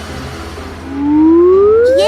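Cartoon sound effect: a smooth whistle-like tone starts low about a second in and glides steadily upward in pitch, louder than the soft background music beneath it.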